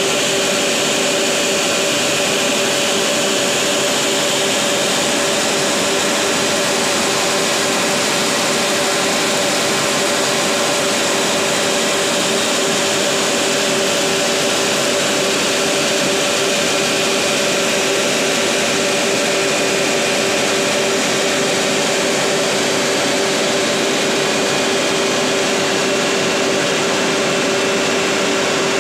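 Irrigation water pumps running steadily, drawing water through suction pipes: an even machine hum with two steady tones over a constant hiss.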